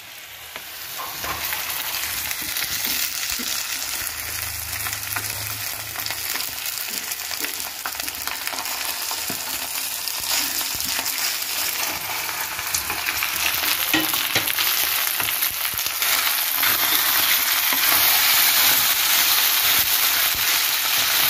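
Mashed boiled potatoes frying in hot oil in a kadhai: a steady sizzling hiss, with a spatula scraping and stirring against the pan in small clicks. The sizzle grows louder over the second half.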